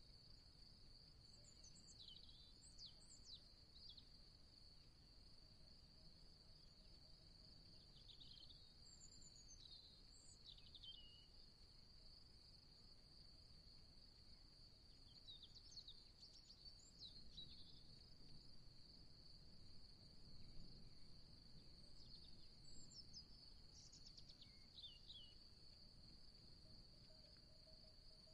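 Faint outdoor ambience: a steady high-pitched insect drone, with short bird chirps every few seconds.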